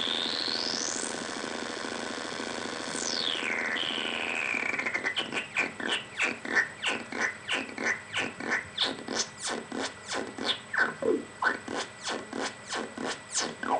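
Doepfer A-100 modular synthesizer, a voltage-controlled oscillator run through a filter whose knobs are being turned by hand. A single electronic tone sweeps up very high in the first second, holds, then glides down, and about five seconds in it breaks into rapid pulsing blips, about three a second, each sliding in pitch.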